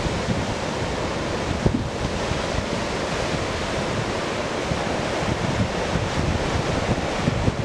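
Ocean surf breaking: a steady wash of noise, with wind rumbling on the microphone underneath.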